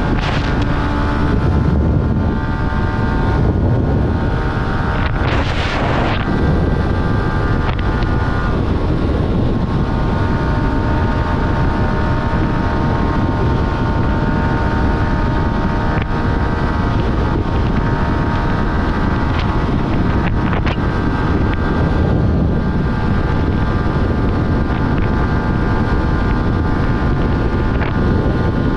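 Yamaha R15's single-cylinder engine running at road speed under heavy wind noise on the microphone. The engine note shifts a couple of times in the first ten seconds, then holds steady.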